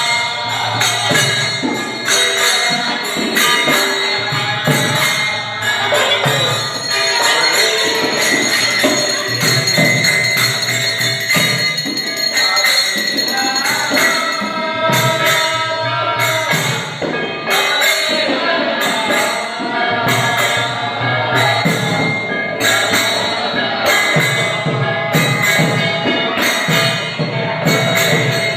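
Music with jingling percussion keeping a steady beat, about one stroke a second in the second half.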